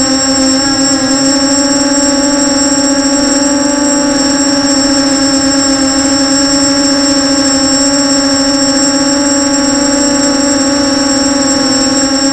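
FPV quadcopter's brushless motors and 6045 bullnose propellers whining at a near-constant pitch in steady flight, recorded from the craft's own camera, with a thin high-pitched electronic whine over it.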